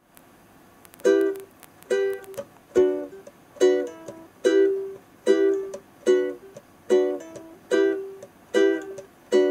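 Music: a plucked string instrument, ukulele-like, strumming one chord at a time. A chord rings out roughly every 0.85 seconds, eleven in all, starting about a second in.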